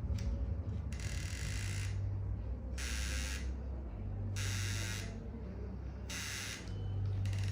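A small electric motor buzzing in repeated bursts of about a second each, switched on and off roughly every two seconds, over a steady low hum.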